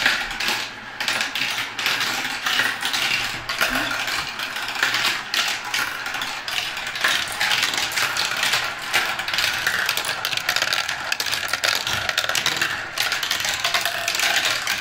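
Many glass marbles rolling and clattering at once through a translucent plastic marble run, a dense, unbroken stream of clicks and rattles.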